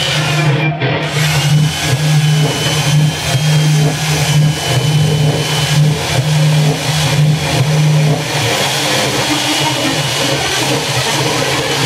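Stihl chainsaw running steadily at cutting speed as it carves into a block of wood, easing off a little about eight seconds in.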